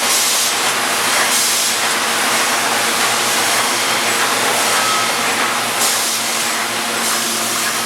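Automated valve-assembly machine running: a steady loud hiss over a faint low hum, with a few brief louder surges of hiss.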